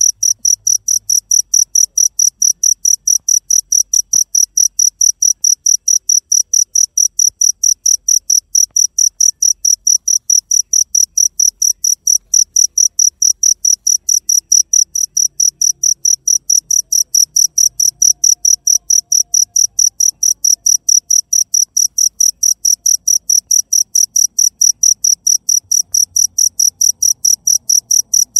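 Cricket chirping steadily: evenly spaced, high-pitched chirps, several a second.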